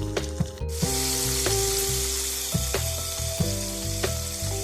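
Floured chicken tenderloins deep-frying in oil heated to 350 degrees, a steady dense sizzle that starts just under a second in.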